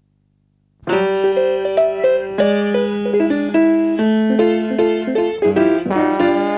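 Background music: a keyboard melody with chords that starts just under a second in, after silence.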